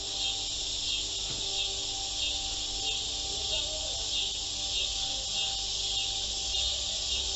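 Steady high-pitched chirring of an insect chorus, like crickets, with faint soft music underneath.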